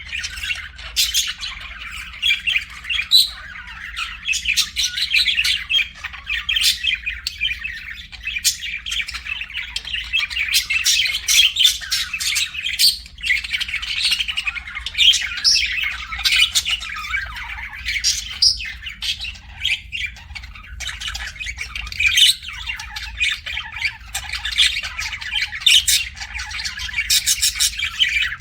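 Budgerigars chirping and chattering continuously, a busy warble of quick chirps, squawks and clicks.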